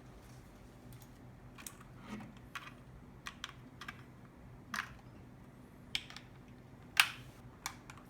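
Clicky Outemu blue switches on an Oker K84 mechanical keyboard, pressed one key at a time: about a dozen sharp, irregularly spaced clicks, the loudest near the end.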